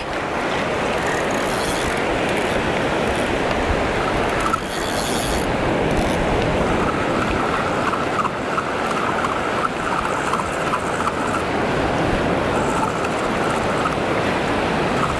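Surf washing on the beach, with steady wind rumbling on the microphone.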